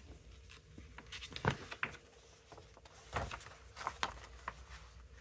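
Paper crackling and rustling as a folded album poster is opened out by hand, in a handful of short, scattered crackles.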